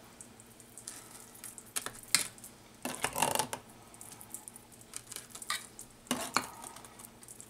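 A metal spoon scraping and knocking against a pumpkin can and a stainless-steel measuring cup as thick canned pumpkin is scooped and packed into the cup, in a few separate scrapes and clinks.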